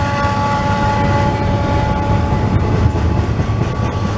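Double-stack intermodal freight cars passing at speed, their wheels running on the rails in a steady, loud rush of noise. A steady high whine fades out in the first second or two.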